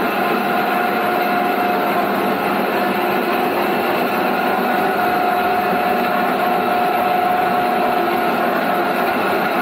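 Motor-driven coffee cherry pulping machine running steadily, a constant mechanical hum with a steady whine, as freshly harvested cherries are fed through to strip the pulp from the beans.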